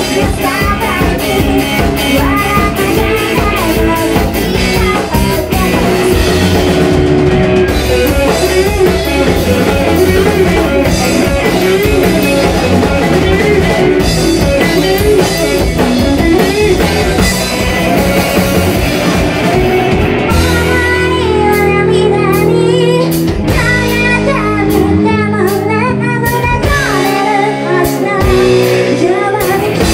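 Live rock band playing a song with a woman singing lead: drum kit, electric guitars and bass under the vocal. About two-thirds through, the bass drops out and the band plays in short stop-start hits under the singing.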